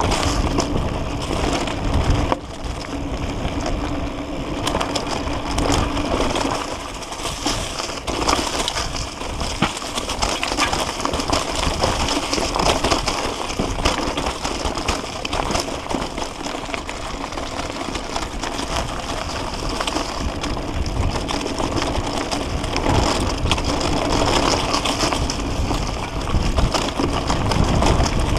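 Mountain bike rolling down a rough dirt trail: tyres crunching over gravel, rocks and dry leaves and the bike rattling over bumps, with a steady low rumble of wind on the microphone.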